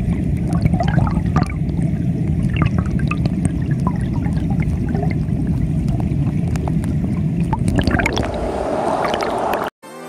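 Flowing stream water recorded with the camera submerged: a steady low rush with many scattered small clicks and ticks. Near the end a hiss builds, then the sound cuts off abruptly and music starts.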